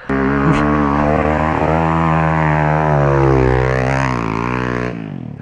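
Small off-road motorcycle engine running under steady throttle. Its pitch climbs a little past the middle, then drops, and the sound stops about five seconds in.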